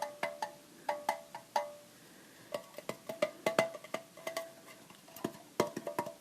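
Rapid tapping on a metal tin, each tap ringing briefly with a bright metallic tone. The taps come in quick runs, with a short pause about two seconds in.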